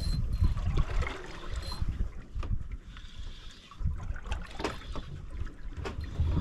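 Wind buffeting the microphone over water lapping against a small boat's hull, with a few sharp clicks in the second half.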